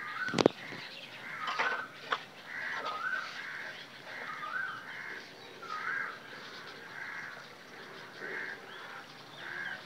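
A bird calling over and over, about one short call a second. A sharp knock about half a second in is the loudest sound, with a smaller one about two seconds in.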